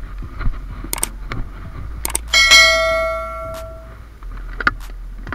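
Subscribe-button animation sound effect: a couple of clicks followed by a single bell ding that rings out and fades over about a second and a half.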